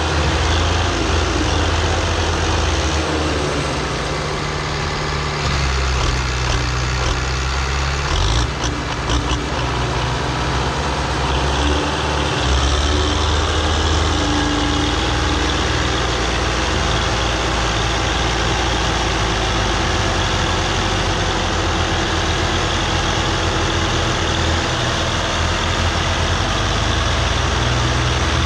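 Tractor diesel engines running hard under heavy load, straining to pull a loaded sugarcane trolley stuck in mud. The engine note holds steady, shifting in pitch a few times in the first half.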